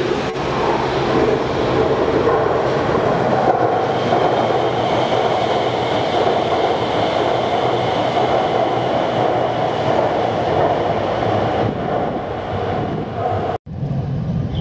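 Guangzhou Metro Line 21 express train passing at speed: a loud, steady rush of wheel and running noise with a faint high whine over it. It cuts off abruptly near the end into a different steady train rumble.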